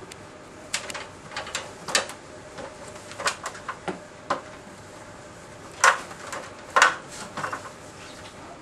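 Irregular clicks, knocks and clatter of the Corebox equipment being handled and fitted into place during setup, with two louder knocks about six and seven seconds in. A faint steady hum runs underneath.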